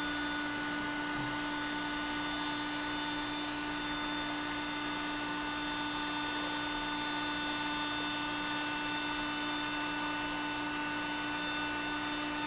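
Electric heat gun running steadily, a constant hum with several steady whining tones and no change in pitch.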